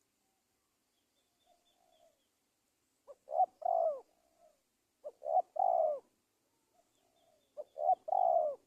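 Spotted dove (tekukur) cooing, used as a lure call: three phrases about two and a half seconds apart. Each phrase is two short notes and then a longer coo that falls in pitch.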